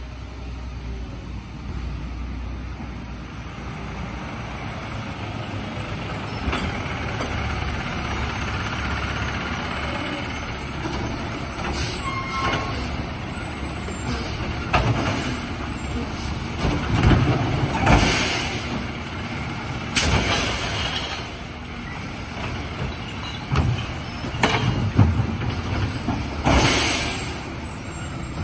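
Automated side-loader garbage truck's diesel engine approaching and idling at the curb, with loud hisses of air brakes and clanks as it stops and moves up beside the carts, including one sharp bang about twenty seconds in.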